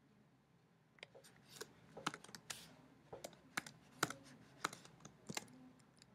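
Faint, irregular keystrokes on a computer keyboard, starting about a second in, as a word in the text is corrected.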